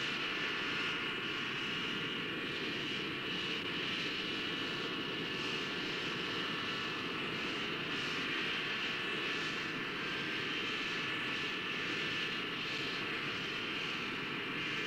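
Jet airliner's engines idling on the ground: a steady high whine over a low rumble.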